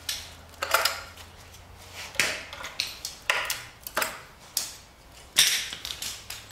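About ten sharp metallic clinks and clanks, unevenly spaced, from tools and metal parts knocking against a 5.3 LS engine on an engine stand as it is worked on.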